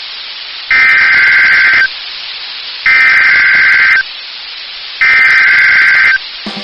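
Emergency Alert System SAME header: three identical bursts of raspy digital data tone, each about a second long and about a second apart, over steady radio hiss. The bursts mark the start of an emergency alert broadcast, here a tornado warning.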